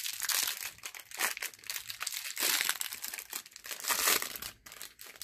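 Clear plastic wrapper on a pack of football trading cards being torn open and crinkled by hand. It is a dense run of crackles that thins out near the end.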